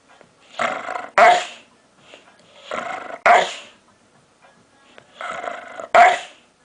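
A dog vocalizing three times, evenly spaced: each time a short drawn-out pitched sound breaks into a sudden loud bark.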